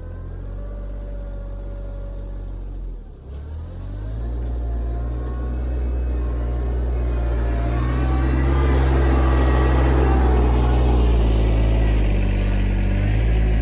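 RK24 compact tractor's diesel engine running under load while pushing mulch. Its revs dip briefly about three seconds in, then climb and hold louder, shifting again near the end.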